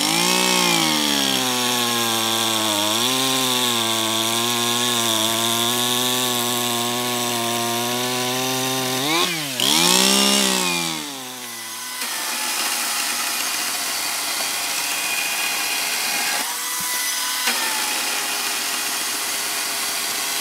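Two-stroke petrol chainsaw cutting through a wooden plank, its engine note sagging under load and then revving up and down at about ten seconds. After about twelve seconds a Greenworks 60V battery chainsaw cuts the same plank: a quieter, steady electric motor whir with chain and wood noise and no engine note.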